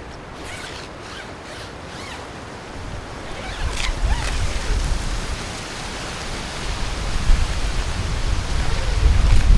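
Wind blowing and buffeting the microphone in low rumbling gusts that strengthen after about three seconds.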